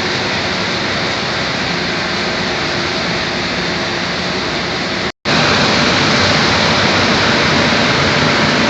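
Rice milling plant machinery running: a steady, loud mechanical rush with a faint hum, cut off for an instant about five seconds in and a little louder after.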